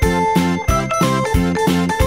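Background music with a steady, quick beat of about three beats a second.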